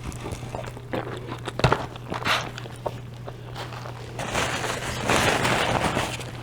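Close-miked chewing and biting of a crispy gyro: scattered sharp crunches, then a louder, longer stretch of rustling crunch about four seconds in. A steady low electrical hum runs underneath.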